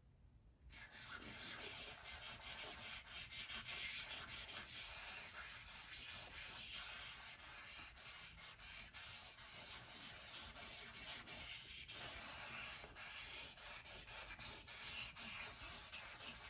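Faint rubbing and scratching of a CraftSmart marker tip dragged across stretched canvas as a line drawing is made, in uneven strokes, starting just under a second in.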